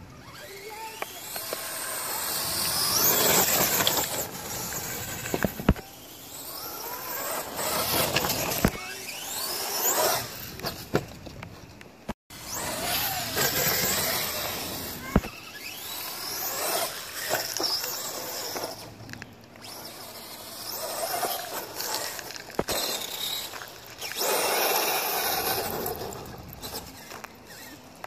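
Brushless electric motor of a radio-controlled monster crawler truck whining up in pitch and dying away again in repeated bursts as the throttle is punched, with tyre noise on wet pavement and grass.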